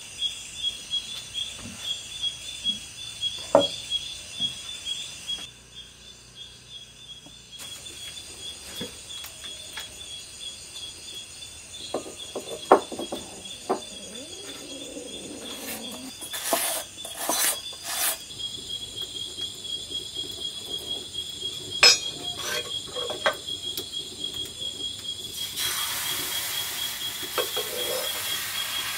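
Crickets chirping steadily, with scattered clinks and knocks of clay pots and metal utensils being handled. A steady hiss sets in near the end as a pan is held over the wood fire.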